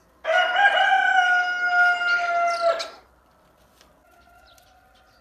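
A rooster crowing: one long, loud crow of nearly three seconds, then a much fainter second crow about a second later.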